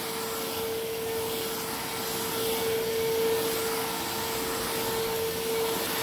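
Hoover Fusion cordless stick vacuum running steadily on carpet, its powered brush agitating the pile. The motor gives a constant whine over the rush of air.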